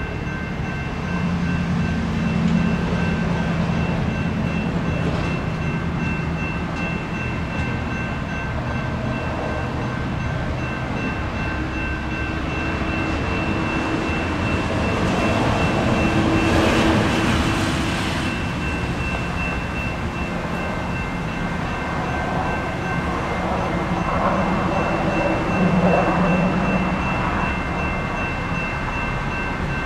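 Railroad crossing's electronic bell (a GS Type 2 E-Bell) ringing continuously while the crossing is activated, over idling road traffic. A swell of passing noise rises and fades about halfway through.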